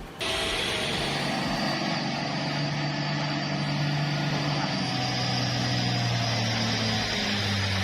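A heavy vehicle's engine running steadily, starting suddenly a moment in, its low hum slowly dropping in pitch.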